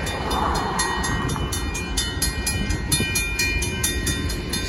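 Railroad crossing warning bell ringing in a rapid, steady rhythm of about four strokes a second while the crossing gates come down. A car passes over the crossing in the first second.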